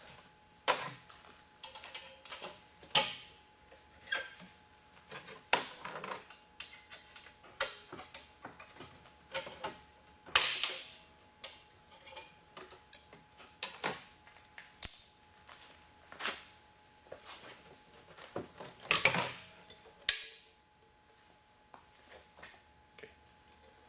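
Steel exhaust springs being unhooked from a Polaris Pro snowmobile's stock silencer with a hand tool: a string of irregular metallic clinks, jingles and clanks, some ringing briefly. The clinks stop about twenty seconds in.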